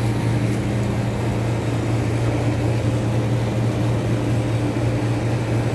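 Steady low mechanical hum of a running engine or motor, even and unchanging.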